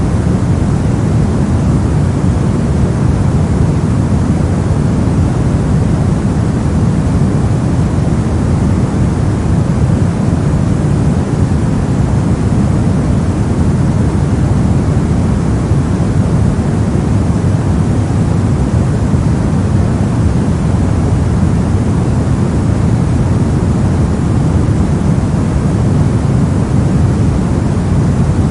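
Steady synthetic brown noise: a constant deep rumbling hiss with most of its energy in the low end and little in the highs, unchanging throughout.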